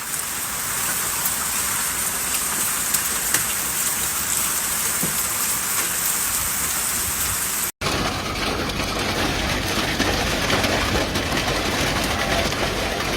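Heavy rain pouring down in a steady hiss with a few sharper hits. It cuts out for a moment about eight seconds in, then resumes fuller and deeper.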